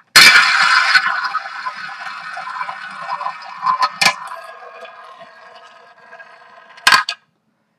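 Roulette wheel spun with its ball rolling around the track, loud at first and slowly fading, with sharper clatters about four seconds in and near the end.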